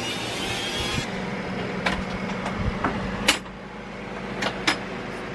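A small rotary tool's grinding wheel whines as it grinds burrs off a metal sewing-machine part, and stops about a second in. After that there is a steady low hum with several sharp clicks and taps, the loudest about three seconds in.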